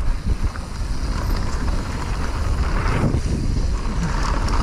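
Wind rushing over the microphone of a mountain biker riding downhill, with a steady low rumble from the bike rolling over the trail and a few faint rattles.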